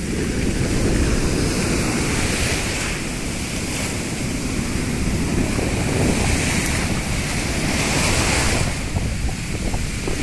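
Rough sea waves breaking and washing on a beach in stormy weather, swelling about two seconds and again about six seconds in, with wind buffeting the microphone.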